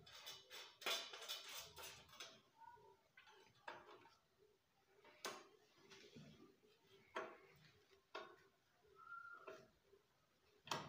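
Faint, irregular metallic clicks of a wrench tightening the bolts of a Honda CD-70's silencer mounting bracket. A quick cluster of clicks comes in the first two seconds, then single clicks every second or two.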